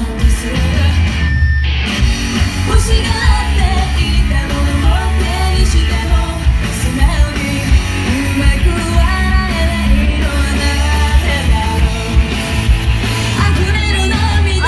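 Live rock band playing with a singer, loud and bass-heavy, with a brief break in the music about a second and a half in.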